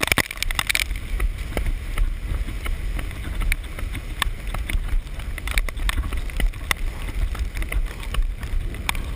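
Wind and rain buffeting a GoPro inside its waterproof case: a muffled, steady low rumble with scattered sharp taps and a short burst of hiss in the first second.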